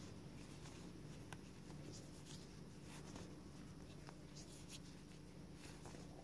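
Faint rustling and soft scratching of cotton cords being handled and twined by hand in whatu finger-weaving, a few small ticks scattered through, over a low room hum.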